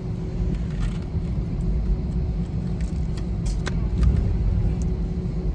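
Airliner cabin during the takeoff roll: a heavy, steady low rumble from the engines and the wheels on the runway, with scattered sharp clicks and a faint steady hum.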